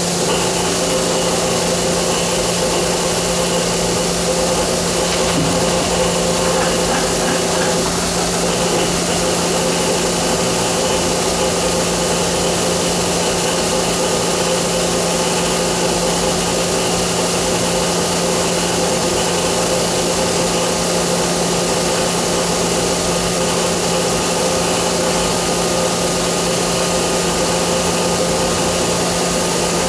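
Johnford SL650 CNC turning center running under power: a steady machine hum with a hiss over it and several held tones, one of which drops out about nine seconds in.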